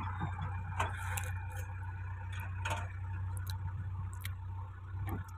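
Diesel engine running steadily at low revs, with a few light clicks and knocks over it.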